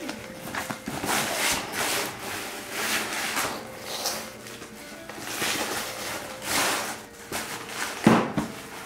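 Wrapping paper crinkling and tearing in repeated rustling bursts as a present is unwrapped by hand, over faint background music, with a louder burst near the end.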